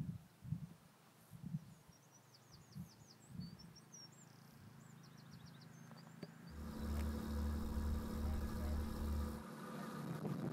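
A small bird sings a quick series of high, falling notes over scattered low thuds. About two-thirds of the way through, a motor engine starts up with a steady throb and becomes the loudest sound. It changes about a second before the end and keeps running.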